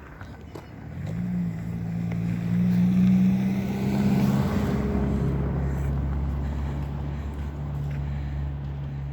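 A motor vehicle driving past, its engine note swelling to a peak and then dropping in pitch as it goes by and fades away.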